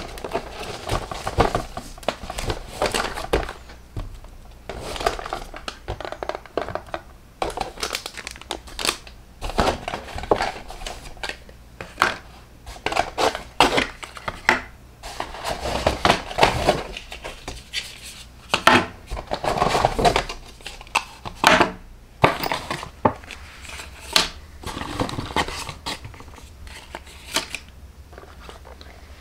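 Paper shopping bags and clear plastic wrapping crinkling and rustling as boxed cosmetics are handled and unpacked, with now and then a light knock as a box is set down on the table.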